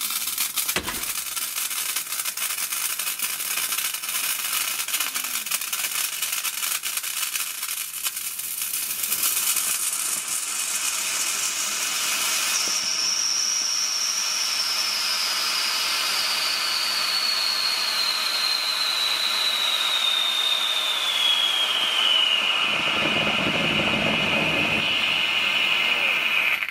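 Homemade potassium chlorate rocket fuel burning in a slightly constricted container with a 3/16-inch hole, a loud steady hiss of the escaping jet. About halfway through a high whistle sets in, gliding slowly down in pitch and then holding, with a lower rumble added in the last few seconds before the sound cuts off suddenly.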